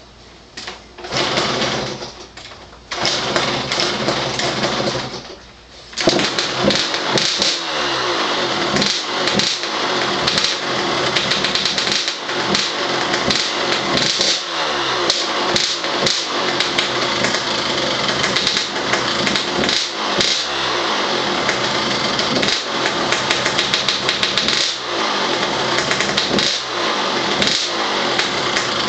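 KTM 85 SX single-cylinder two-stroke dirt bike engine being kick-started: it fires and dies twice in the first few seconds, then catches about six seconds in and runs, revved up and down again and again. The bike would not idle, so the throttle is kept blipping to keep it running.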